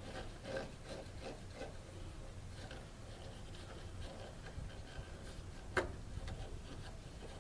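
Hand screwdriver turning a screw in by hand: faint, irregular scraping and rubbing strokes, with one sharp click a little before six seconds in.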